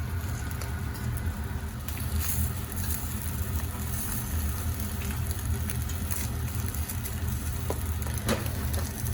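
Food frying in a frying pan: faint scattered crackles over a steady low hum.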